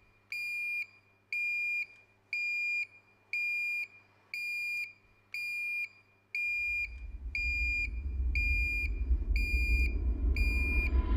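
Electronic alarm beeping, one high beep about every second. From about halfway through, a low rumbling drone swells up underneath and grows steadily louder until it is the loudest sound.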